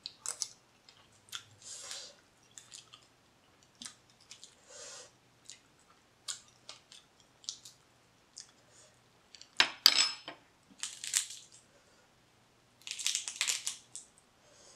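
Close-up eating sounds of cooked blue crab being picked apart and eaten: scattered small clicks and crunches of shell, with short wet mouth noises. A sharp click with a brief ring about ten seconds in is the loudest sound.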